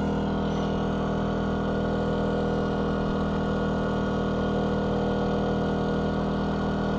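DuroMax XP2000is inverter generator running steadily at raised engine speed under a 1,500-watt load, close to its capacity.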